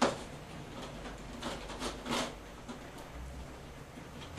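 Handling clicks and light knocks of a downlight fitting and its spring clips being pushed and turned up into a ceiling hole: a sharp click at the start, then a few softer clicks about one and a half to two seconds in, and another click near the end.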